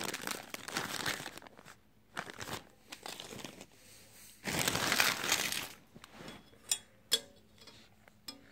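Clear plastic bag crinkling as a bagged plush toy is handled, in two spells, then a few short clicks and knocks near the end.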